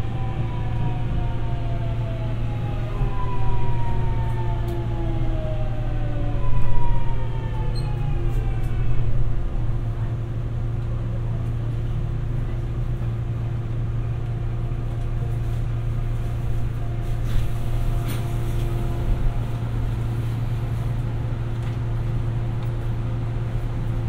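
Busan Metro 2000 series subway car riding sound: the motor whine falls in pitch over the first nine seconds or so as the train brakes to a stop, then a steady hum and rumble of the standing car's onboard equipment.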